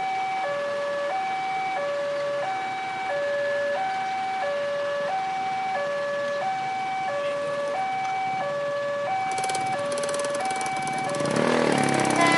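Railway level-crossing warning alarm sounding a two-tone hi-lo signal, the high and low tones alternating steadily about once a second while the barrier is down. From about nine seconds in, a fast ticking rattle joins it, and near the end a louder rumble builds under the alarm.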